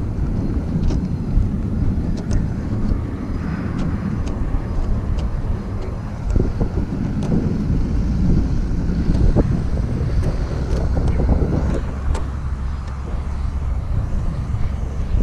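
Wind buffeting the camera microphone, a steady low rumble, with a few scattered light clicks and knocks.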